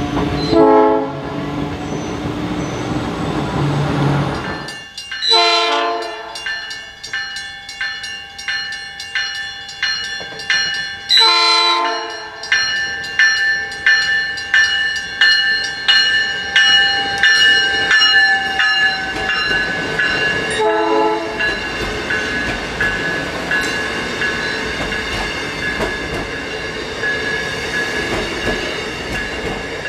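South Shore Line electric commuter train running along street track and sounding its chord horn four times: a short blast near the start, two longer blasts in the first half, and a shorter one about two-thirds through. Between the middle blasts and the last one, a rapid regular clanging sounds over the train's steady high-pitched whine and running noise.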